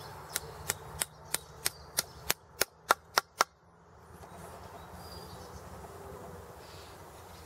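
Eleven sharp, hard taps, about three a second and growing louder, then stopping: a small wooden wedge being knocked into the wooden handle to fix an antler mace-head tight on it.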